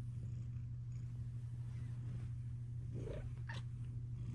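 Bengal cat purring steadily, close to the microphone. A brief click comes about three and a half seconds in.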